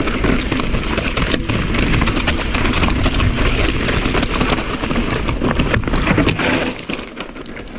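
Mountain bike riding over a rocky, loose trail: tyres crunching on rock and gravel, with many sharp knocks and rattles from the bike over the bumps, and a low rumble of wind on the microphone. The noise drops noticeably near the end.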